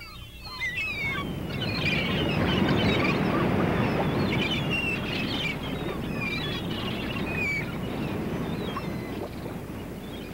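Rubber balloons squeaking as they are twisted into balloon animals: many short, high squeals that bend in pitch, scattered irregularly over a steady low background rumble.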